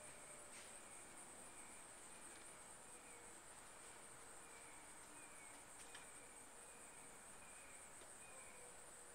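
Faint, steady high-pitched insect chorus, like crickets, with no change through the stretch.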